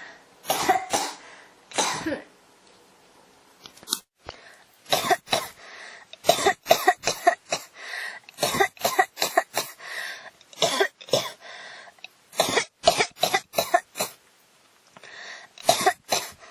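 A person coughing over and over: a few single coughs, then from about five seconds in a long run of quick coughs with breaths drawn between them, and a last burst of coughs near the end.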